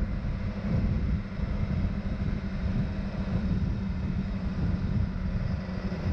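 Motorcycle riding at a steady speed: the engine hums evenly under heavy wind rush over the microphone.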